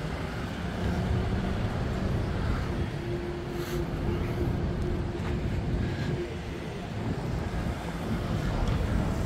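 Outdoor road traffic: a motor vehicle running nearby over a low rumble, with a steady hum from about three seconds in to six and a half.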